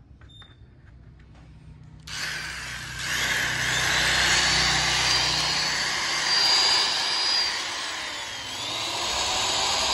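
Hitachi 100 V, 240 W angle die grinder switched on about two seconds in, spinning up to a high-pitched whine and running at full speed. Its pitch sags briefly and recovers once near the end.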